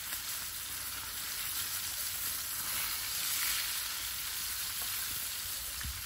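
Sardines sizzling over a wood fire: a steady hiss with a few faint crackles.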